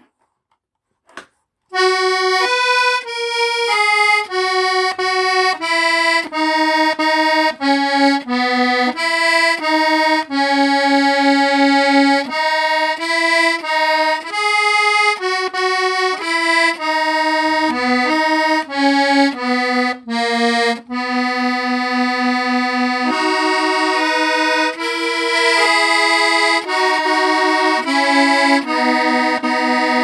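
A squeezebox playing a tune, a melody of held reedy notes that starts about two seconds in after a brief silence.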